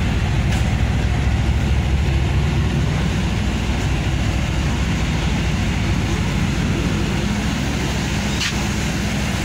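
Steady low engine drone from a train standing at the platform, with a faint click about half a second in and another near the end.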